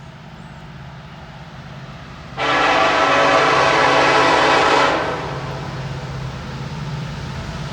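Norfolk Southern SD70ACe diesel locomotive's air horn sounding one long blast of about two and a half seconds, starting about two seconds in and cutting off sharply. Under it runs the steady low drone of the locomotive.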